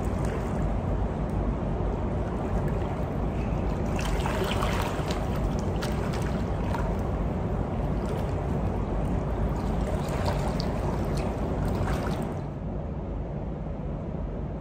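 Pool water sloshing and splashing as a person wades sideways through chest-deep water, kicking back, over a steady low hum. About twelve seconds in the splashing stops and only the low hum remains.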